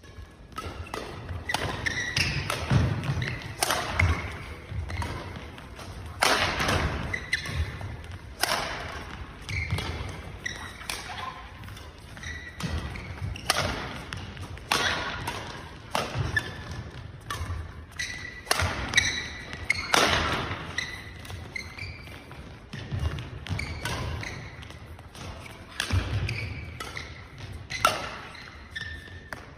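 Badminton rackets striking a shuttlecock back and forth in a fast doubles rally, sharp cracks about once a second. Between the hits, feet thud and shoes squeak on the court mats.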